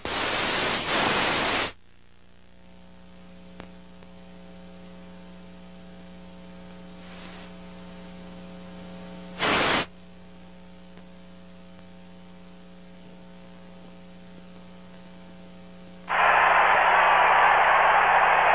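A television broadcast feed dropping out as the earthquake cuts the signal. It opens with a loud burst of static, then settles into a steady electrical hum with faint steady tones, broken by a short burst of static about halfway through. Near the end a loud, steady hiss of static comes in.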